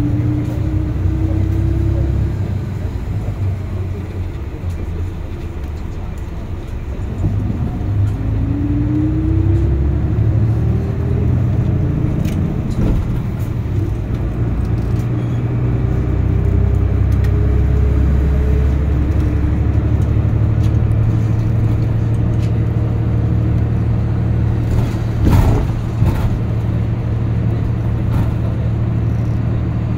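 City bus heard from inside the cabin, its engine and drivetrain running with a low rumble and a whine that climbs in pitch several times as it gathers speed. A sharp knock comes about 25 seconds in.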